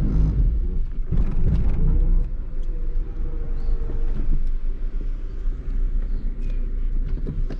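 Low rumble of a 1991 Honda Civic DX's D15 four-cylinder and five-speed manual drivetrain, heard from the cabin while backing up in reverse. A faint steady whine rises over the rumble about two seconds in and lasts about two seconds. It is the noise the owner gets in reverse and first gear when coming off the throttle, which he describes as a metallic grinding.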